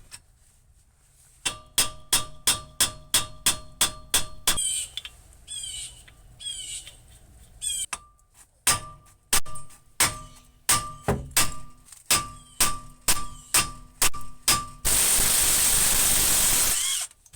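A ratchet wrench working the strut mount bolts: runs of sharp, ringing metallic clicks about three a second, with a pause in between. Birds chirp faintly during the pause, and near the end a loud rushing noise lasts about two seconds.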